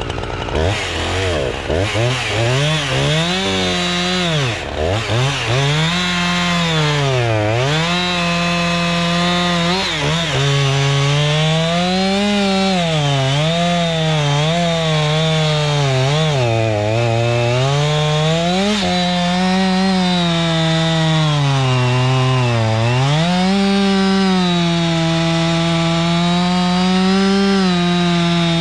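Husqvarna 357 XP two-stroke chainsaw with a 20-inch bar, on its first run since a tune-up kit was fitted, revved in quick blips at first and then run at high speed through oak logs. Its pitch sags and recovers again and again as the chain loads up in the cut.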